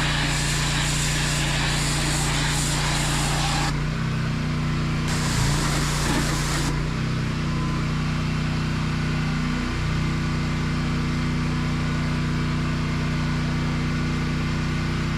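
High-pressure pressure washer running steadily, its jet spraying with a loud hiss for the first few seconds and again briefly a little past the middle; once the trigger is released the machine's engine hum carries on alone.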